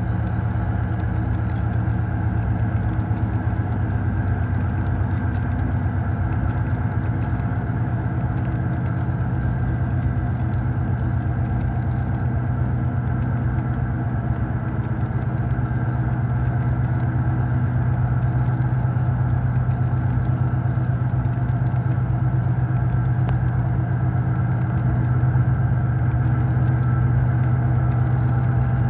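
Diesel locomotive engine sound effect running steadily, a deep drone with a strong low hum.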